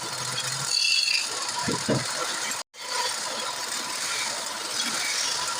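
Wood lathe running, with a turning tool scraping and cutting the spinning wood in a dense, rattly chatter. The sound drops out for a moment about halfway through.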